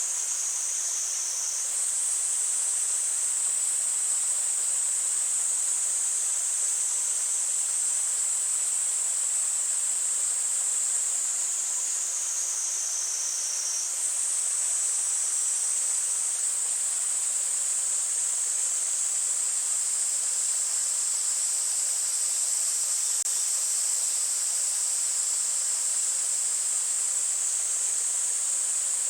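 Cicadas buzzing in a steady, high-pitched chorus over the faint rush of a mountain stream; the buzz jumps abruptly in pitch twice, about two seconds and fourteen seconds in.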